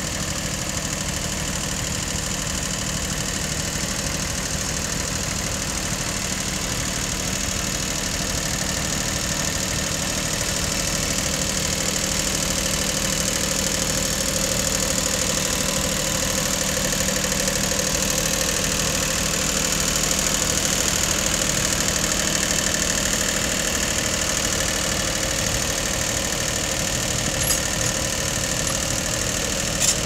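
Iseki TU1600 compact tractor's diesel engine running steadily under load as it pulls a plough, a little louder about halfway through.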